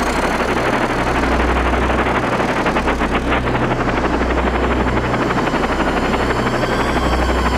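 Loud, dense sound-design noise over a deep hum that swells and drops about every second and a half, with a fast rattling flutter a few seconds in, close to a helicopter's rotor chop.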